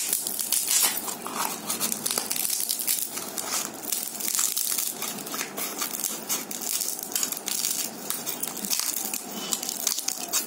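Scissors cutting through a fully dried ridge gourd, snipping and tearing its brittle papery skin and stringy fibres with a continuous dry crackling and crunching.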